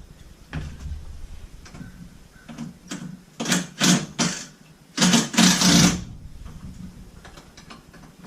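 Small electric motor whirring in several short bursts, a few about three and a half seconds in and more about five seconds in, over faint clicks and handling noise.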